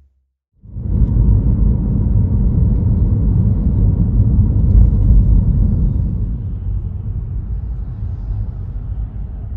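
A loud, low rumbling noise that starts abruptly about half a second in and slowly fades toward the end.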